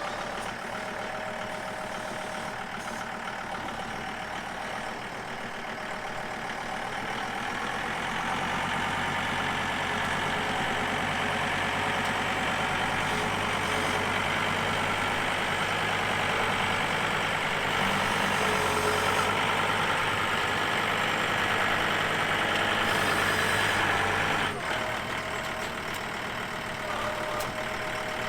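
Two-wheel-drive John Deere tractor's engine running as the front loader bucket scrapes mud and manure. It gets louder about a third of the way in, holds there, and drops back sharply near the end.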